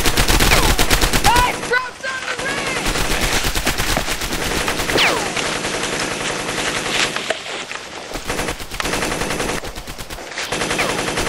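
MG42 machine-gun fire in long, rapid bursts, with short breaks about two, seven and a half and ten seconds in.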